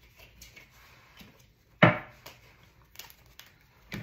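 Tarot cards being handled at a table: faint flicks and taps, then one sharp knock against the tabletop about two seconds in, and a smaller knock near the end.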